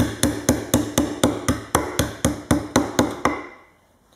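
Wooden toy hammer pounding the pegs of a wooden pound-a-peg bench in a rapid even run of about four knocks a second, stopping a little over three seconds in.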